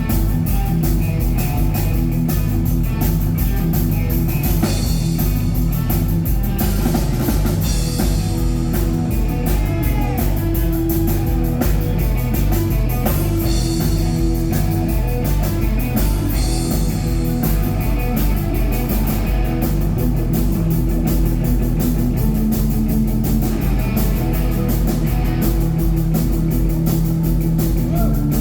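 Rock band playing live: guitar over a drum kit keeping a steady beat.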